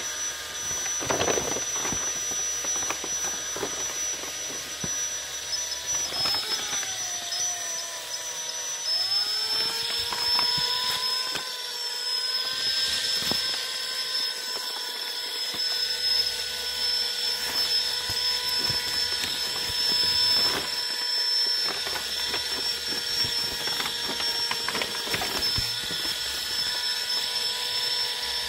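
A small electric motor whining steadily. Its pitch dips a little about six seconds in, then climbs and holds steady from about nine seconds on, with scattered light knocks.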